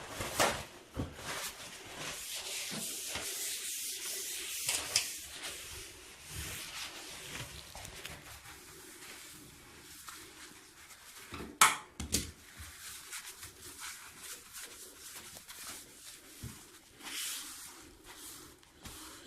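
Hands handling parts at a bathtub drain: rubbing and scraping with a few sharp clicks and knocks, the loudest click about two-thirds of the way through.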